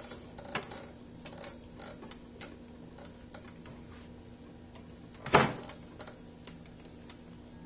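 Light clicks and knocks of hands handling wires and the plastic chassis frame of a CRT TV, with one sharp knock about five seconds in, over a faint steady hum.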